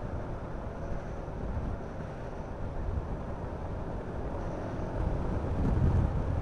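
Honda Forza 350 scooter riding at road speed: wind rush and road noise in a steady low rumble that gets louder near the end.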